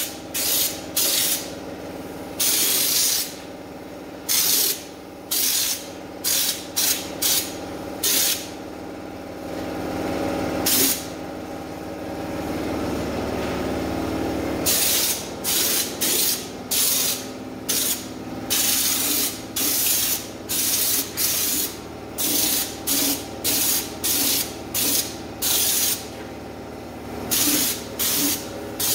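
Air-fed underbody coating gun spraying stone guard from a screw-on can in repeated short trigger bursts of hissing spray, mostly one or two a second, with a lull of a few seconds midway. A steady hum runs underneath.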